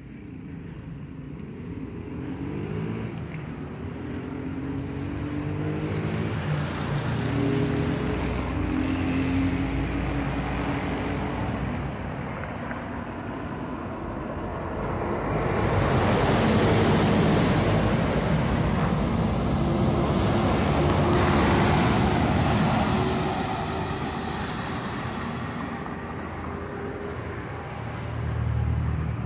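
Street traffic: cars and motorcycles passing close by, their engines rising in pitch as they pull away. The loudest, closest passes come about halfway through and again a few seconds later.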